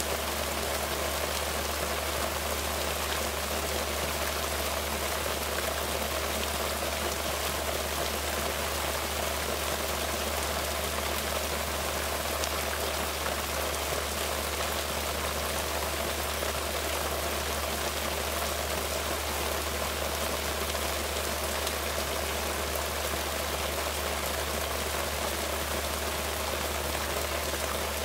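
Steady rain falling on wet ground and foliage, an even hiss with no let-up, over a steady low rumble.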